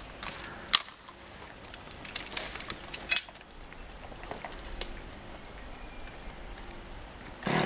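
Scattered sharp clinks and clicks of metal climbing gear on a climber's harness, with the strongest about a second in and again about three seconds in, over a low steady background.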